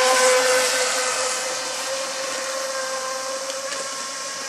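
Electric RC speedboat (Pursuit V-Hull, 820 mm) running at speed: the steady high whine of its water-cooled 3660SL 3060kv brushless inrunner motor over the hiss of spray from the hull and propeller. It is loudest in the first second as the boat passes close, then eases off as it moves away.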